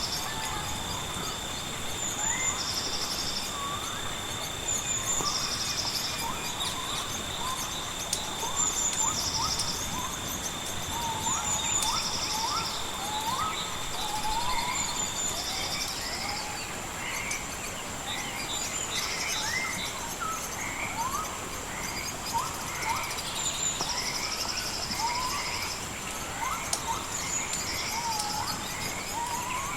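Nature ambience of many birds giving short rising chirps, with insects buzzing in repeated short trills and a steady high insect whine that stops about halfway through, over a steady background hiss.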